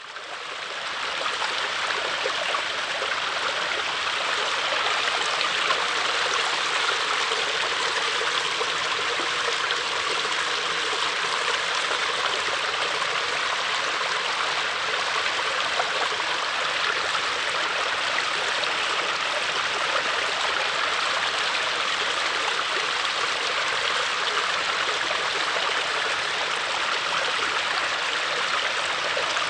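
Babbling brook: water running and gurgling over stones, steady throughout after fading in during the first second.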